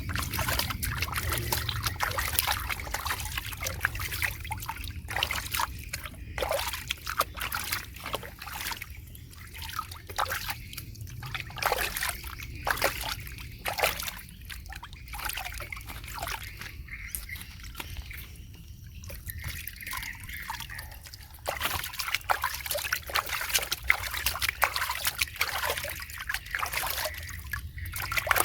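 Water being sloshed and trickled, with irregular small splashes and drips, busier near the start and again near the end.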